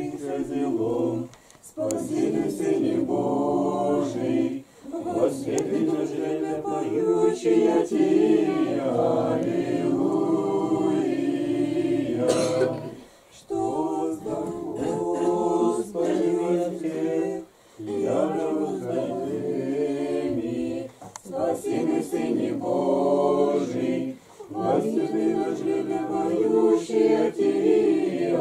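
Small church choir of men and women singing Orthodox liturgical chant a cappella, in long held phrases broken by short pauses for breath.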